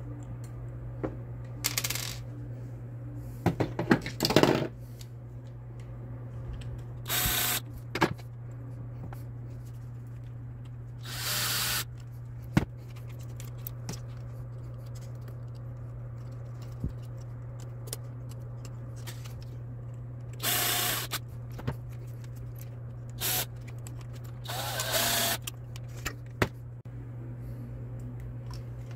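A cordless drill/driver spinning in short bursts of about a second, driving screws into the 3D-printed plastic parts of an animatronic head. Small clicks and clatter from plastic parts and screws being handled come in between, over a steady low hum.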